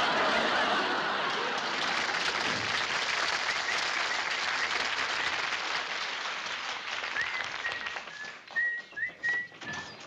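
Studio audience applauding and laughing after a joke, loud at first and slowly dying away over about eight seconds. In the last few seconds, caged birds chirp in short whistled notes.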